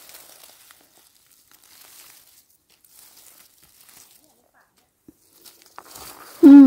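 Faint rustling and crinkling in the forest undergrowth, then near the end a short loud vocal exclamation from a person, falling in pitch.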